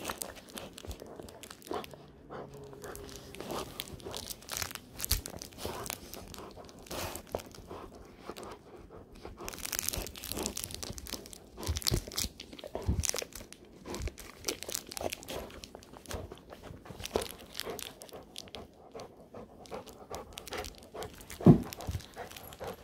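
A pitbull-mix dog chewing and gnawing on a plush duck squeaker toy close to the microphone, an irregular run of crackling, crunching and tearing sounds. A single loud thump comes near the end.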